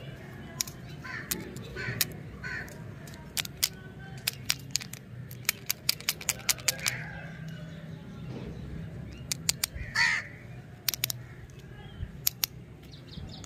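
Sharp clicks and taps of hard candy lollipops and their plastic sticks being picked up and gathered in the hand. A bird calls several times in the background, loudest about ten seconds in.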